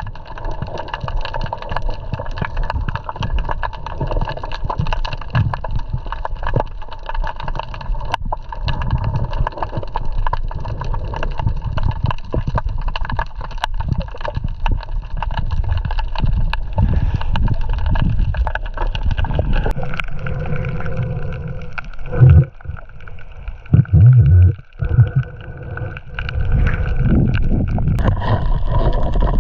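The motor of a small boat running steadily under way, with water and wind noise around it. Its pitch drops slightly about two-thirds of the way through, and a few loud low bumps follow.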